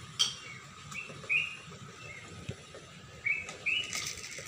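A small bird chirping in short, repeated high calls, in two clusters a couple of seconds apart. Near the end come a few light taps as dry cat food is tipped from a plastic bottle onto the tiled floor.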